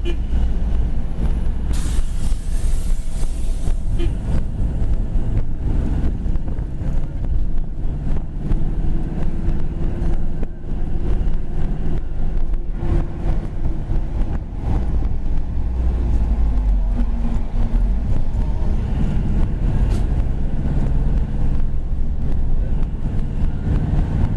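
Road traffic running along a busy street, a steady low rumble of engines and tyres with wind buffeting the microphone. A brief hiss, like a vehicle's air brake, about two seconds in.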